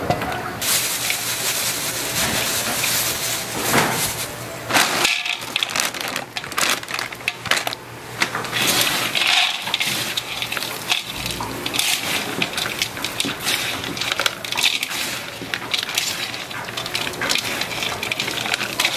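Small dried anchovies, mixed with almonds and chopped chili peppers, being tossed by gloved hands in a large stainless steel bowl: a dry, crisp rustling and crackling that comes and goes with each toss.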